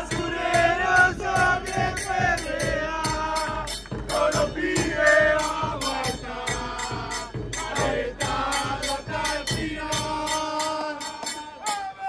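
A group of football supporters chanting a song together in unison, over a steady beat of a bombo bass drum with a cymbal on top.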